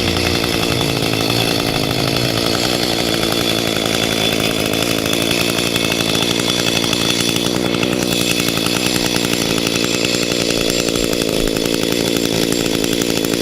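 Two-stroke chainsaw running steadily at a constant pitch.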